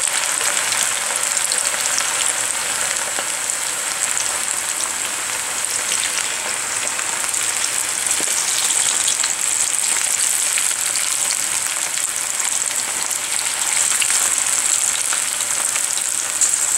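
Batter-coated cauliflower florets deep-frying in hot oil: a steady sizzle with fine crackling.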